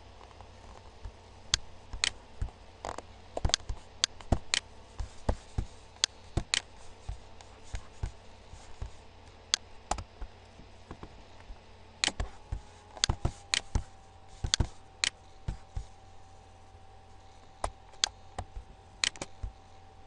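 Computer mouse clicking: irregular single clicks and quick double clicks throughout, over a faint steady electrical hum.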